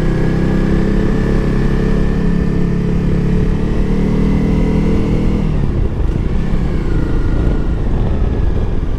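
Honda CRF250L Rally's single-cylinder four-stroke engine running at a steady pace under way. About five seconds in, the steady engine note fades, leaving rougher, unpitched noise.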